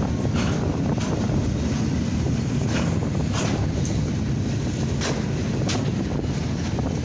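Freight cars of a mixed freight and steel train rolling past a grade crossing: a steady heavy rumble with occasional sharp clacks, under gusty wind on the microphone.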